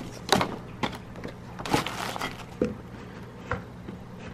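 Items being shifted and settled inside a white gift box lined with tissue paper: about half a dozen scattered light knocks and taps, with some rustling.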